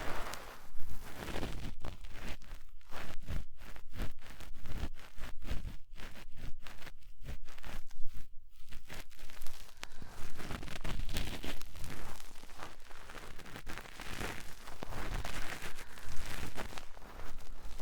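Cotton swab rubbing and scratching in the ear of a 3Dio binaural microphone: a dense run of quick scratchy rustles, giving way about halfway through to slower, softer sweeping strokes.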